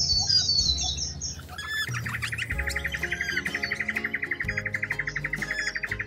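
Bird calls over soft background music: a run of high, falling chirps in the first second and a half, then a rapid, steady trill from about two seconds in.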